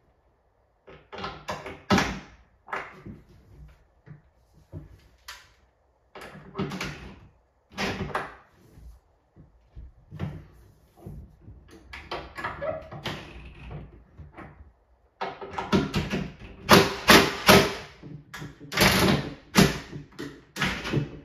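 Wall-cabinet door being swung and pushed shut while its hinges are adjusted: a string of knocks and clunks, then in the last third several louder, longer bursts as a cordless drill runs the hinge screws. The door is binding, which the installer puts down to faulty hinges.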